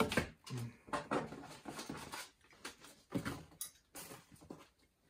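Plastic wrapping and paper rustling and crinkling in irregular bursts as hands rummage through a cardboard box.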